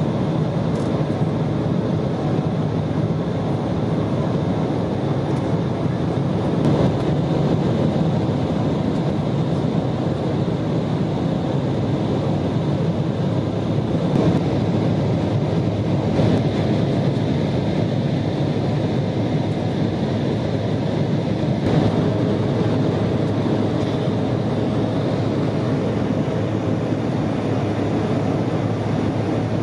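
Steady roar of jet engines and rushing air inside the cabin of an Embraer E175 during its climb-out after takeoff, heard from a seat over the wing. The aircraft's General Electric CF34-8E turbofans are running at climb power, with no change in pitch or loudness.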